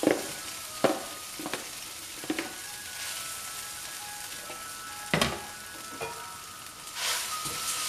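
Soaked poha (flattened rice) tipped into a hot non-stick pan of oil and spices, sizzling, with a few sharp knocks from the container and pan. The sizzle swells near the end.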